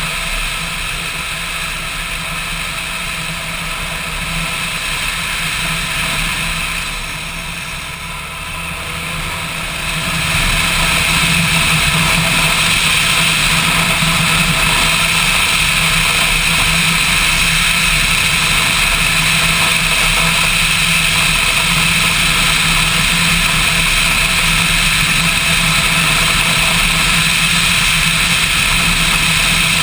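Motorcycle engine running while riding, with wind rushing over the camera. It dips briefly and then grows louder about ten seconds in.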